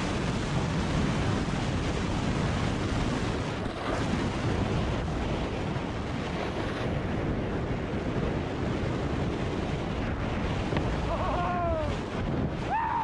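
Steady rush of wind over the microphone of a snowmobile moving fast down a snowy trail, with the machine's engine and track noise mixed into it.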